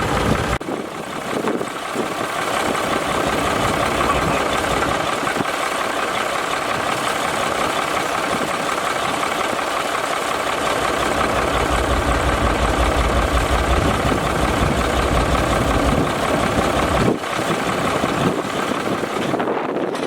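Mercedes diesel engine of a Fowler BB1 ploughing engine running, with a low, rapid firing beat that comes and goes in strength. The sound changes abruptly about half a second in and again near the end.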